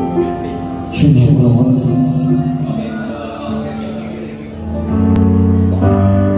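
A live band playing a song, with a male voice singing over held chords and a sharp hit about a second in.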